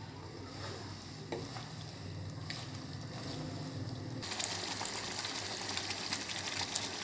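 Chicken in a creamy gravy bubbling and sizzling in a karahi, with a wooden spoon stirring and now and then scraping the pan. From about four seconds in the sizzle is steady and louder.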